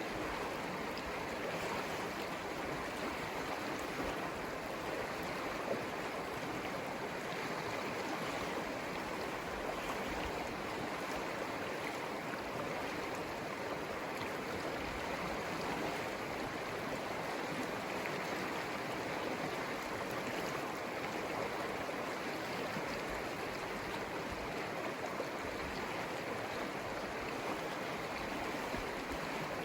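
Conejos River flowing: a steady, even rush of running river water.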